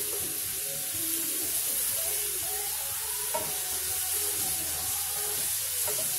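Ground beef sizzling as it browns in a cast-iron skillet, with a metal spatula scraping through the meat and a couple of small taps on the pan.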